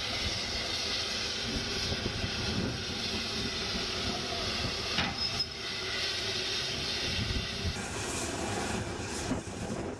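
BR Standard 8P three-cylinder Pacific steam locomotive 71000 Duke of Gloucester moving slowly, with a steady hiss of steam over a low rumble and a sharp click about halfway. Near the end the hiss of escaping steam becomes brighter and louder.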